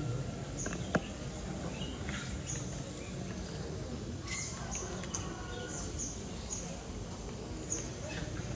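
Small birds chirping, many short high chirps that slide downward in pitch, over steady low background noise. A single sharp click sounds about a second in.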